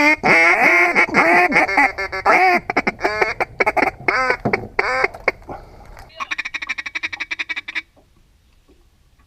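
Hand-blown duck call worked by a hunter to draw in ducks: a loud string of falling quacks, then about six seconds in a fast, even chattering feed call lasting under two seconds.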